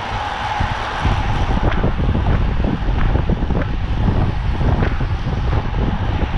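Wind rushing over the microphone of a camera on a racing bicycle at speed, with a steady low rumble and a scatter of short clicks.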